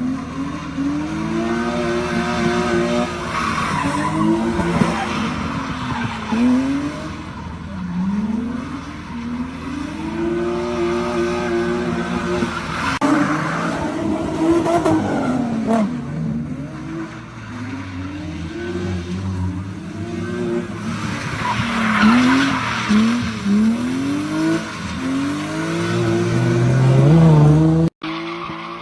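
A car drifting: the engine revs up and drops back over and over, with tyres squealing and skidding. Near the end the sound breaks off abruptly and a steadier engine note follows.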